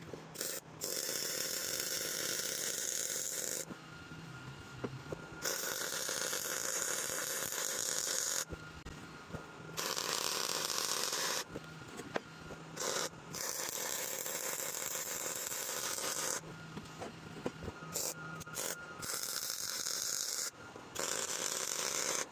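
Welding arc crackling in about six runs of two to four seconds each, starting and stopping abruptly between beads.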